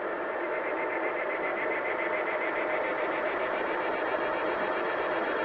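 Steady hiss of background noise with a few faint steady tones, growing slightly louder; no speech.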